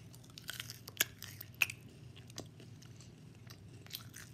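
A person chewing a Rice Krispies treat close to the microphone: scattered mouth clicks and smacks, the sharpest around one to one and a half seconds in.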